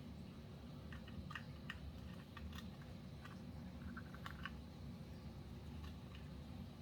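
A scatter of small, sharp clicks and taps from plastic parts being handled, bunched in the first two-thirds, over a steady low hum.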